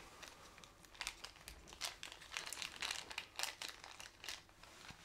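Faint crinkling of a plastic packet of synthetic dubbing being handled: a run of light, irregular crackles starting about a second in and stopping shortly before the end.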